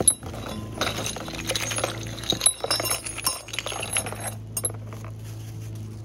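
Small metal bolts, nuts and washers clinking inside a crinkling plastic hardware bag as it is handled and opened, a quick run of rustles and clinks that stops about four and a half seconds in. A steady low hum runs underneath.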